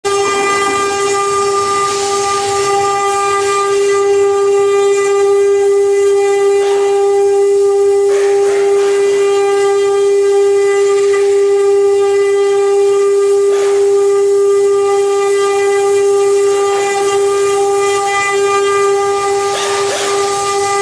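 CNC router spindle running with a steady high whine that holds one pitch throughout, with a few brief rushing noises now and then.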